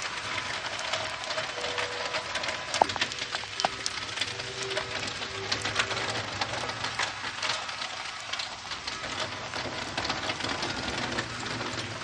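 Rain and light hail pattering on a tuned rain drum: a dense run of small taps, with short ringing notes sounding here and there as drops and hailstones strike its tuned tongues. A sharper strike comes just under three seconds in.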